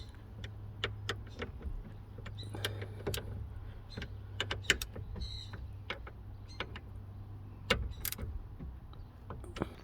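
Scattered small clicks and knocks of parts and tools being handled while fitting a quick-release steering hub and its wiring, over a steady low hum; the strongest knocks come near the end.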